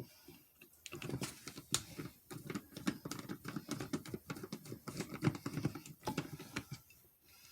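A small screwdriver with a T10 Torx bit working a screw out of a plastic turn-signal multifunction switch: quick, irregular light clicks and taps of the tool and parts being handled.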